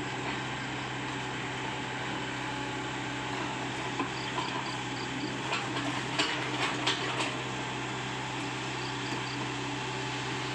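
Komatsu PC75UU mini excavator's diesel engine running at a steady hum, with a handful of sharp clanks around the middle and a few short high chirps.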